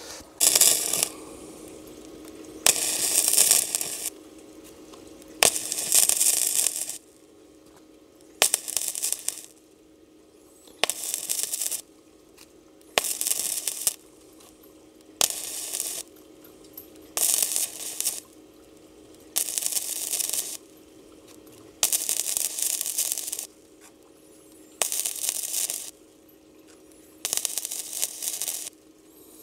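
Electric arc welding in short runs: about twelve sizzling, crackling bursts of about a second each, every two to two and a half seconds, each starting with a sharp click as the arc strikes, over a steady low hum.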